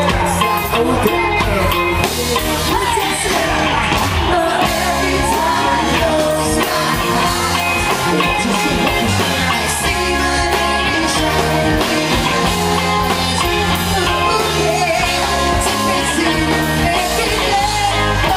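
Live rock band playing a song with a lead singer, over drums, electric guitars, bass guitar and keyboard, loud and steady throughout.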